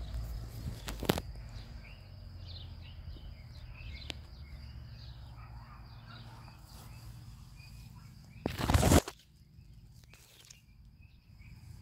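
Outdoor garden ambience: small birds chirping and a steady high insect buzz. A sharp click comes about a second in, and a brief loud rustle near the end of the middle.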